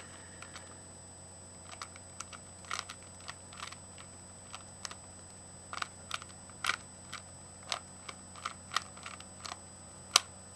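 A Rubik's cube being turned by hand: its plastic layers click and clack in irregular single turns, one or two a second, with one sharper snap near the end.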